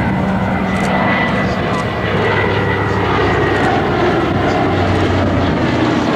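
Twin Pratt & Whitney R-1830 Twin Wasp radial engines of a PBY-5A Catalina flying past, giving a loud, steady propeller drone.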